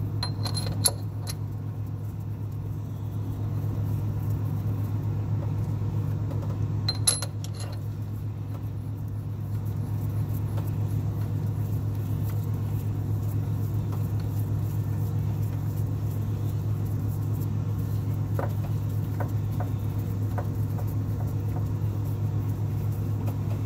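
A steady low hum throughout, with two sharp metallic clinks, about a second in and about seven seconds in, and a few faint ticks later, as the metal pieces and bolts of a rear main seal installation tool are handled and fitted to the crankshaft.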